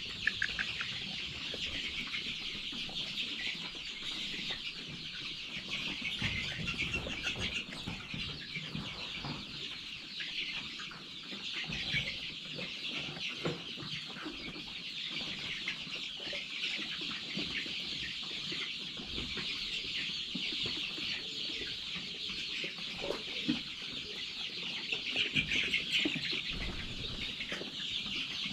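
A crowded flock of young chickens calling all at once, a steady high-pitched chorus of peeps and clucks.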